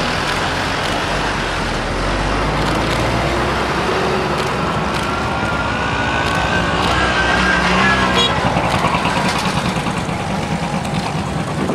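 Diesel locomotive engine running steadily as a passenger train rolls slowly in, with a faint rising whine midway and a rapid pulsing in the last few seconds. A crowd's voices mix in.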